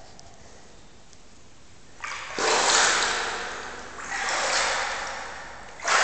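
Water in the pool at the bottom of a well being splashed and sloshed in three surges about two seconds apart, each starting suddenly and trailing off.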